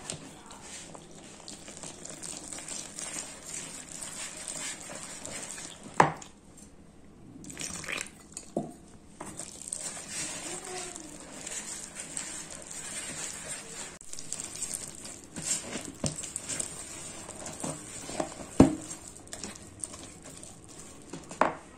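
Wire whisk mixing flour, eggs and water into a thick batter in a bowl: a steady scraping hiss, with a few sharp knocks of the whisk against the bowl.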